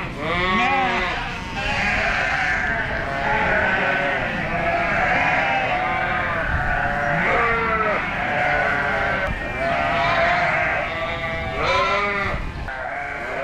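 A barn full of sheep and lambs bleating, many overlapping calls with no let-up. The lambs and ewes have just been separated from each other for weaning.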